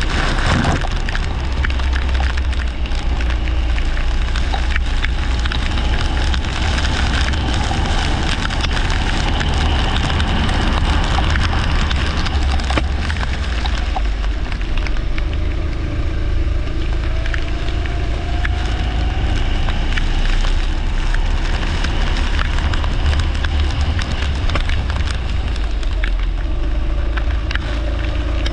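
A leisure racing kart's engine running hard, its pitch climbing twice as it accelerates, under a dense crackle and a heavy low rumble.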